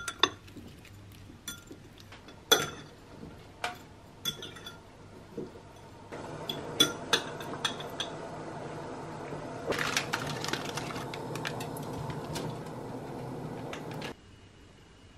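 Cutlery clinking against a ceramic bowl: single sharp clinks over the first few seconds. From about six seconds in a steady kitchen hum joins, with more clinks and scrapes of utensils on the bowl, and it all stops abruptly about a second before the end.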